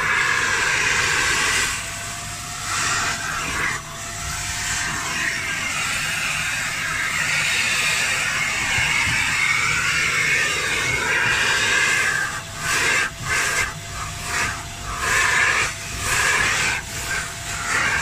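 Kärcher spray-extraction carpet cleaner running, its vacuum motor giving a steady hiss with a faint whine as the hand nozzle sucks water and dirt out of car floor carpet. From about two-thirds of the way in, the sound swells and drops roughly once a second as the nozzle is drawn back and forth across the carpet.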